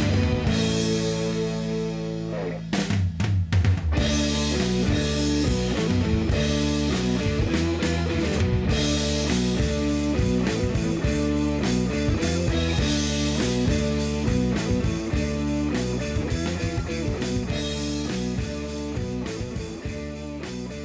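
Background rock music with guitar and a drum kit keeping a steady beat, fading out near the end.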